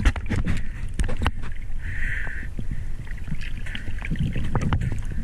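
Water sloshing and moving around a camera in a waterproof housing: a muffled low rumble with many sharp clicks and knocks from handling, and a short hiss about two seconds in.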